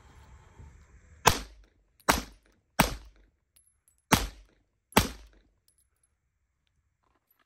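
Five shots from a Heckler & Koch VP9 Match 9 mm pistol: three in quick succession, a short pause, then two more, each with a brief echo.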